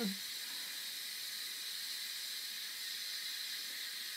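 Instant Pot electric pressure cooker venting steam through its pressure-release valve during a quick release: a steady hiss as the pressure bleeds off before the lid can be opened.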